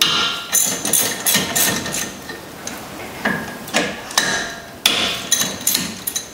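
Metal-on-metal clinks and clicks of a ratchet and 14 mm socket working the front brake caliper bolts loose. The clinks come unevenly, several a second, some with a short metallic ring.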